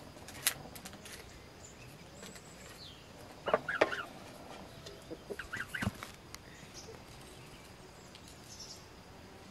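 A domestic goose calling in short bursts, loudest about three and a half seconds in, with a second, weaker group of calls around five and a half seconds. A single sharp tap about half a second in.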